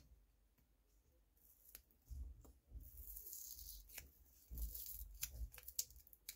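Faint handling of a roll of paper stickers as they are peeled off: scattered light clicks, a brief papery rustle about halfway, and a few dull knocks against the desk.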